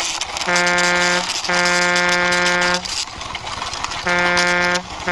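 Truck horn sound honking in a repeated pattern: a short honk, then a longer one, then another short honk, with a rattling scrape underneath.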